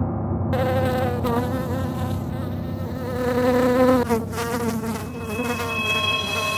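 Wasp buzzing in flight: a droning wingbeat hum that wavers in pitch, starting about half a second in and swelling briefly about four seconds in.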